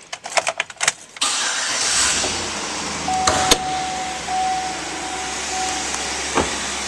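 A 2009 Chevrolet Avalanche's 5.3-litre V8 being started: a few clicks, then the engine catches about a second in and settles into a steady idle. A steady tone sounds on and off for a few seconds in the middle, and a short knock comes near the end.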